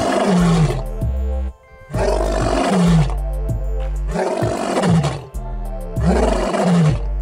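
Male lion roaring, over background music with a steady beat.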